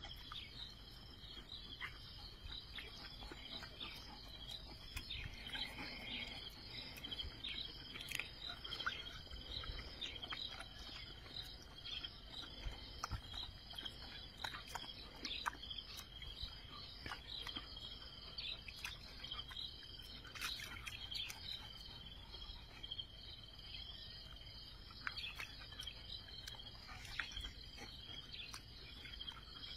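Faint, steady chorus of chirping insects: a high, continuously pulsing trill, with scattered faint clicks and taps over it.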